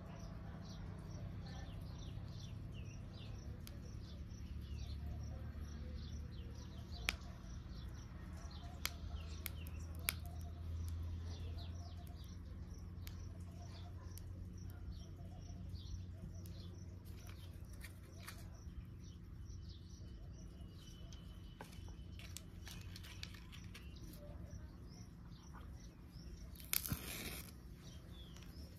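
Small birds chirping over and over, short quick chirps, above a steady low rumble. A few sharp clicks fall in the middle, and a brief noisy burst comes near the end.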